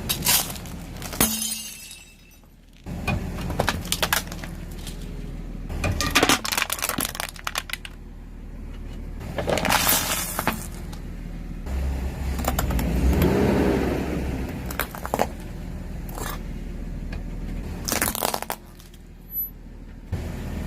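A car's engine running low under a series of sharp cracks and crunches as brittle objects break under its tyres, with a swelling rumble partway through.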